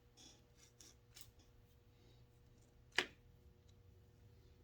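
Faint clicks from a chainsaw recoil starter being handled as its freshly cleaned spring is wound back up, with one sharp click about three seconds in.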